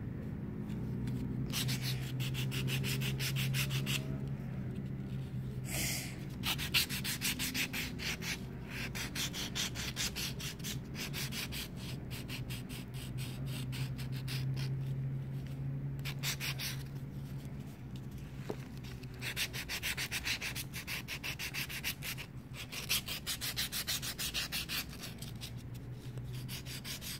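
Nail file rubbing back and forth on a crumpled aluminium foil ball, in quick runs of strokes with short pauses between them. It is filing the rough edges smooth on a Japanese foil ball.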